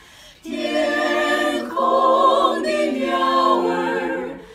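A small mixed group of men and women singing a Chinese hymn together without accompaniment. After a short breath at the start they hold a phrase over several changing notes, easing off near the end.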